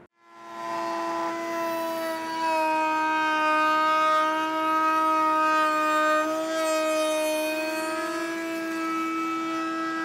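Router mounted in a router table, fitted with a flush-trim bit, spinning up in the first second and then running with a steady high whine.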